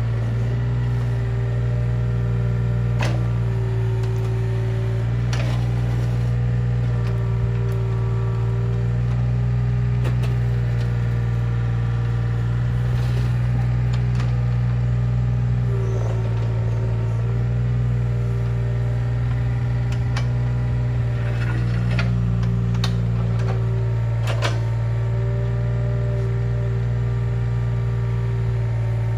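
Mini excavator's diesel engine running steadily while the machine works, with a few sharp knocks and clanks and a brief change in the engine note about halfway through.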